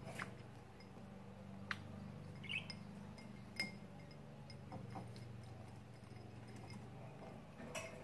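Budgerigars bathing in a shallow ceramic dish of water: a few faint, scattered clicks and small splashes over a steady low hum.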